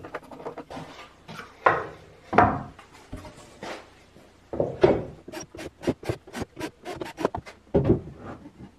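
Wooden parts being handled and set in place: a series of knocks and rubbing of plywood and wood, with a quick run of light clicks from about five to seven and a half seconds in.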